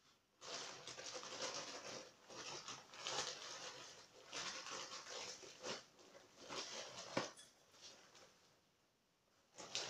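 Plastic mailing bag crinkling and rustling as it is handled, in several bursts for about seven seconds, with a sharp tap about seven seconds in, then quiet until another rustle at the end.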